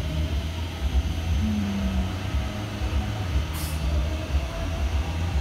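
Low, steady rumbling background noise, with a brief short hiss about three and a half seconds in.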